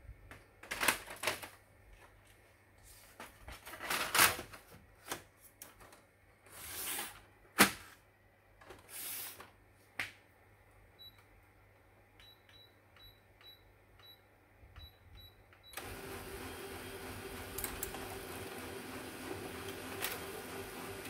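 Clicks and knocks of handling, then a series of short high beeps, then a Canon LBP251 laser printer starting up about 16 seconds in and running steadily as it feeds and prints a test page.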